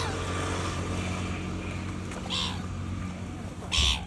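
Three short harsh bird calls, spaced about a second and a half apart, over a steady low hum.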